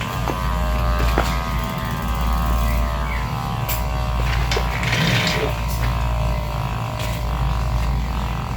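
Road bike rear wheel spinning freely, its freehub pawls clicking so fast they run together into a buzz that slowly drops in pitch as the wheel coasts down, over a steady low rumble.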